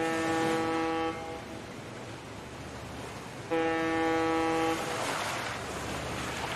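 A horn sounds two long blasts at one steady pitch, about three and a half seconds apart, over a constant background hiss.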